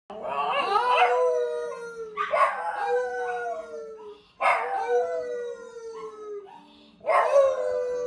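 A small dog howling along with a man: four long howls, each sliding down in pitch.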